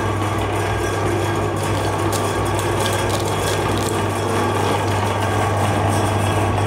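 Electric meat grinder running with a steady motor hum as its auger grinds a frozen ice cream bar, with a few sharp crackles about two to three seconds in.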